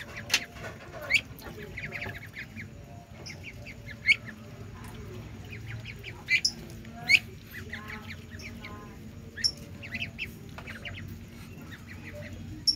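Ducklings peeping repeatedly while they feed on scattered grain: many short, high chirps from several birds, a few of them loud.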